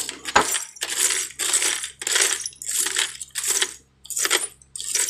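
Rhythmic metallic rasping from hand work on metal, about two strokes a second with a short pause near four seconds, over a faint steady low hum.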